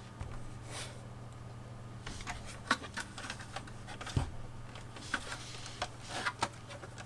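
Plastic building bricks and their packaging being handled: scattered small clicks and short rustles, with a sharper click about four seconds in.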